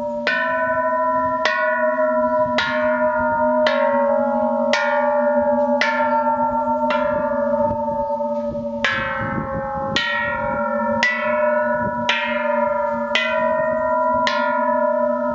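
A row of bronze Thai temple bells struck one after another with a small wooden striker, about one strike a second, each bell ringing on into the next with a slightly different pitch.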